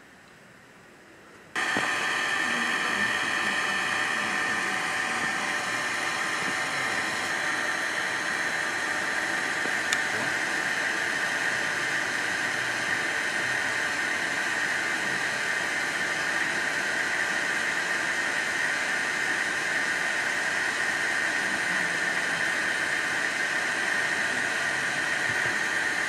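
A steady noise like a hiss with many held tones in it, loudest in the upper middle of the range. It starts abruptly about a second and a half in.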